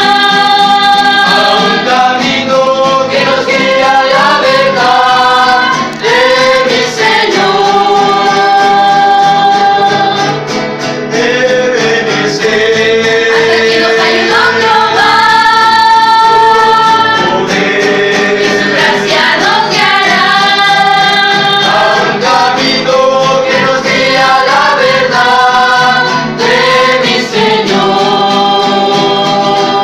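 A small group of young singers, mostly women's voices, singing a Christian worship song together, accompanied by strummed acoustic guitars.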